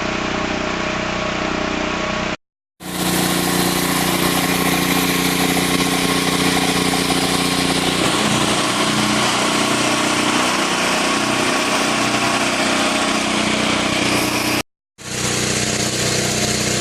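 Engine-driven CO2 welding generator running steadily, with a hiss over its engine tone. It breaks off twice for an instant where clips are joined.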